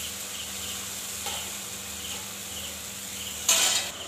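Tomato masala sizzling as it fries in oil in a kadhai while being stirred with a spatula, with one loud scrape of the spatula against the pan near the end. Insects chirp steadily in the background.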